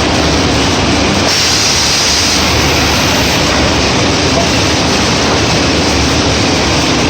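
Pellet packaging machine with four weighers running: a loud, steady mechanical noise with a low hum, and a brief higher hiss about a second in.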